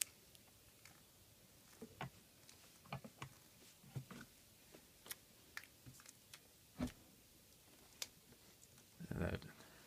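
Faint, scattered clicks and light knocks of a plastic computer monitor and its stand being handled while the stand is fitted, with a short rustle near the end.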